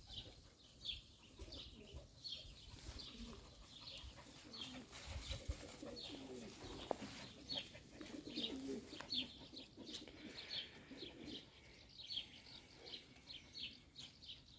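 Small birds chirping: many short, high chirps that fall in pitch, repeated throughout, with low dove cooing in the middle.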